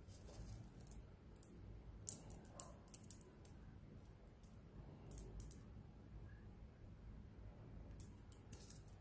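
Handmade silver jewelry set with fluorite clicking and clinking lightly as it is handled: faint, sharp clicks in a few small scattered clusters.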